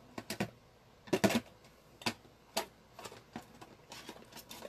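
A series of sharp clicks and knocks from craft tools being handled on a desk, the loudest about a second in, followed by lighter clicking.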